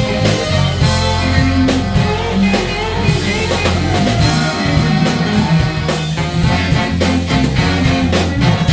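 Klezmer punk band playing loud instrumental music live: a driving drum kit with heavy bass, guitar and a melody line that slides in pitch.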